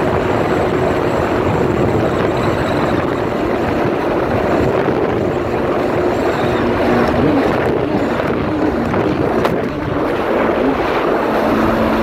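Kawasaki personal watercraft running under way: a steady engine drone mixed with rushing water, with wind buffeting the microphone.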